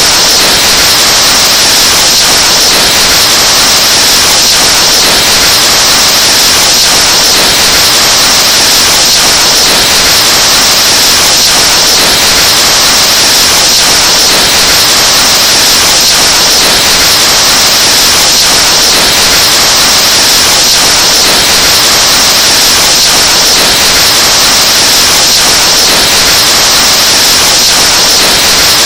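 Breath blown into a microphone, amplified into heavy clipping: a very loud, harsh, distorted hiss that stays steady without a break.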